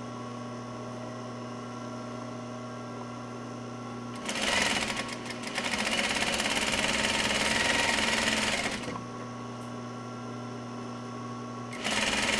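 Sewing machine stitching in runs: a short burst about four seconds in, a longer run of about three seconds that stops, and another run starting near the end. Between runs there is a steady low hum.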